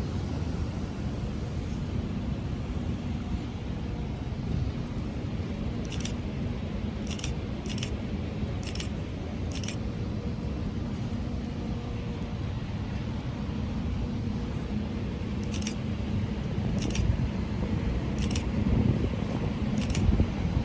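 Steady low rumble of background traffic, with two runs of short, sharp high-pitched ticks, a few seconds apart, starting about six seconds in and again near the end.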